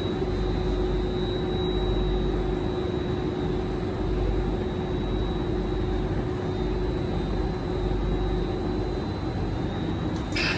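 Singapore MRT train heard from inside the carriage: a steady rumble with a constant hum and a thin high whine, the hum dying away about nine seconds in, then a short click near the end.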